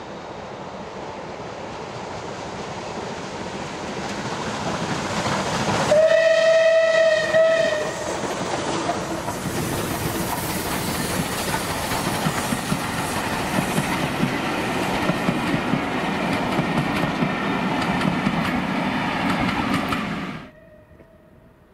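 Double-headed steam train, SR West Country pacific 34028 Eddystone with BR Standard Class 4 tank 80136, growing louder as it approaches. A steam whistle sounds for about two seconds around six seconds in. The loud rumble and clatter of the locomotives and train going by follows, then cuts off suddenly near the end.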